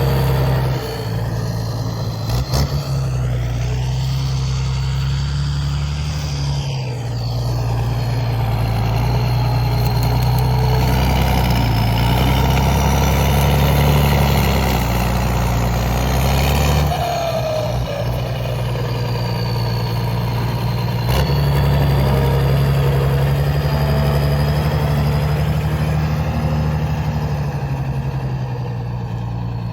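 CBT 1105 tractor's Mercedes-Benz 366 six-cylinder diesel running at work, its note shifting up and down several times as the load and throttle change, with a thin high whine riding over it.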